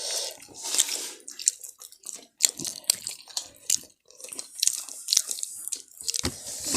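Close-up eating sounds: chewing and crunching on chicken with irregular wet mouth clicks and smacks.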